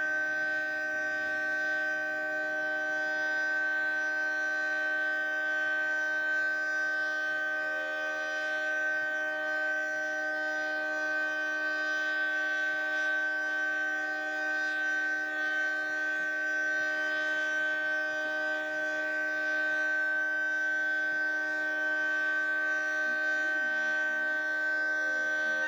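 Federal Signal 3T22 three-tone electromechanical outdoor warning siren sounding a steady chord at full speed: several pitches held together without rising or falling.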